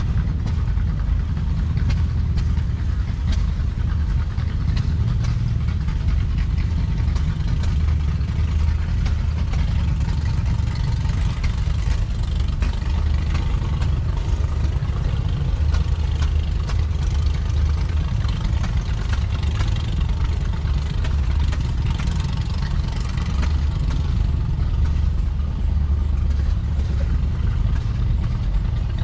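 Vintage farm tractor engine idling steadily, with a low, even running sound.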